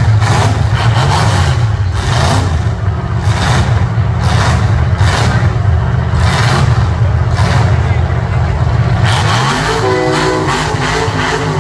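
Demolition derby cars' V8 engines revving hard under load, loud, with repeated bursts of noise as the cars ram and shove one another and spin their wheels; one engine note rises near the end.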